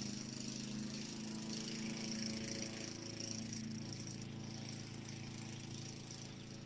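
A low, steady engine hum at an even pitch.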